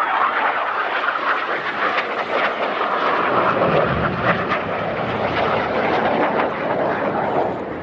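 BAE Hawk T1 jets flying past, the noise of their turbofan engines loud and steady throughout.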